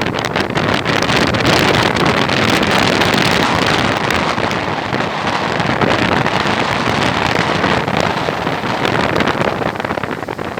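Stormy sea: rough waves surging and crashing in a long rush of surf, with strong wind buffeting the microphone. The noise swells about a second in and eases off near the end.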